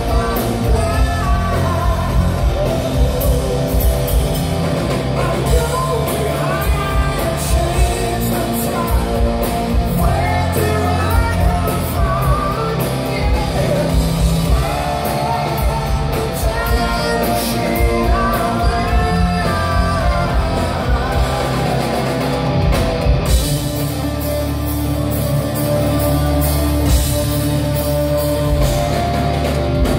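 Live rock band of electric guitar, bass guitar and drum kit with a lead singer, heard from the audience in a hall. About two-thirds of the way through, the singing and cymbals drop back and held low notes carry on, with the drums coming back in just before the end.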